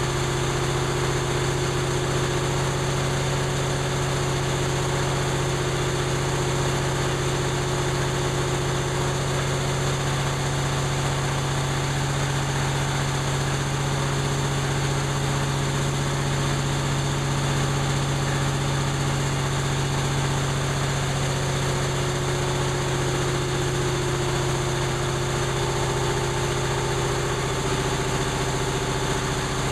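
1930 Atlas Diesel type C2DKV monoblock compressor running at a steady, even speed after its complete overhaul.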